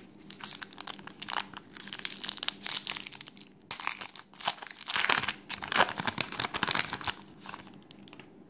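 Foil wrapper of a Garbage Pail Kids Chrome trading-card pack being torn open and crumpled by hand: a dense crinkling crackle lasting about seven seconds, with a brief pause midway and the loudest crackling in the second half.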